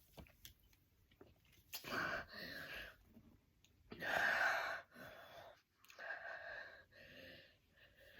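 A person's breathy exhales and gasps, a handful of them with short pauses between, the loudest about four seconds in, as they catch their breath after chugging sparkling water.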